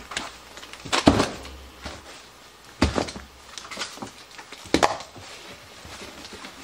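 Frozen meat packages being set down hard into a hard-sided tote: three sharp thuds about two seconds apart, with smaller knocks and rustling of plastic wrapping between them.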